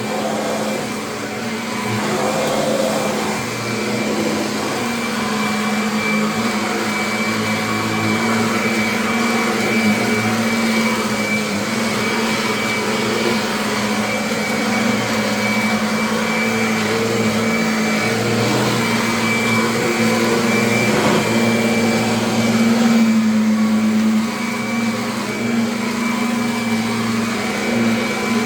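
Kirby upright vacuum cleaner running steadily: a continuous motor hum with a thin high whine over the rush of air.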